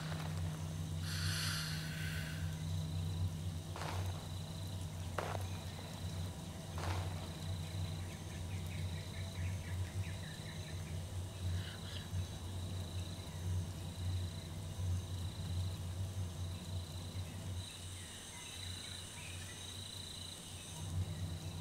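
Eerie film ambience: a steady low hum with a faint, high, cricket-like chirring above it. A few brief swishes pass through in the first seven seconds.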